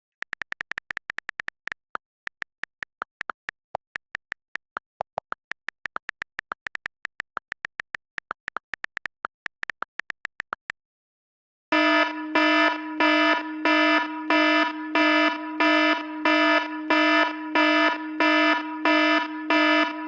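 iPhone sound effects: a rapid run of sharp key clicks, several a second at slightly uneven spacing, stops after about ten seconds. After a short pause, an electronic alarm tone starts pulsing on and off about twice a second.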